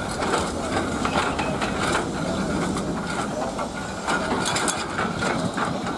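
Jet engines of a departing Boeing 737-800 (CFM56-7B turbofans) running at climb thrust: a steady, rough rumble full of crackle.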